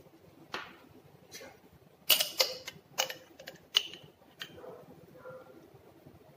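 Sharp, irregular clicks and taps, about seven in all, from a plastic mayonnaise squeeze bottle being picked up, opened and squeezed out over a bowl of shredded cabbage.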